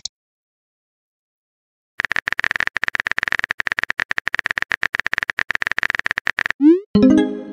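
Texting-app sound effects: rapid keyboard tapping clicks for about four seconds after a short silence, then a quick rising swoop and a bright chime near the end as a chat message is sent.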